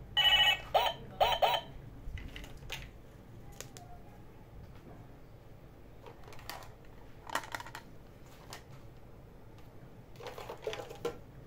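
A Hello Kitty toy telephone's electronic ringtone chirps on for about the first second and a half and stops, then hard plastic toys are set down with scattered light clacks and a short clatter near the end.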